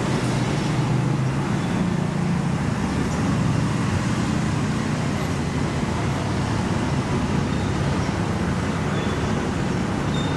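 Steady street traffic: car and motorbike engines running close by, with a low engine hum under the road noise.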